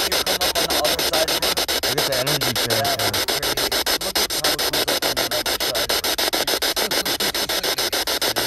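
Spirit box sweeping through radio stations: hiss chopped about eight times a second, with brief snatches of broadcast sound between the jumps.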